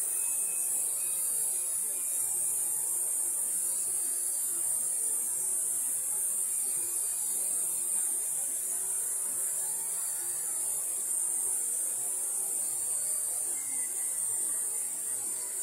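Steady high-pitched hiss, with faint wavering lower sounds beneath it.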